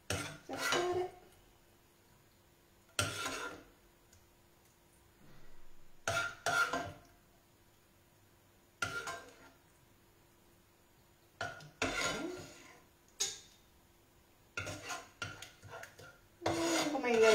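A serving utensil scraping and clinking against a frying pan and a plate as gnocchi are scooped out and plated. The sounds come in separate short strokes every few seconds, more often near the end.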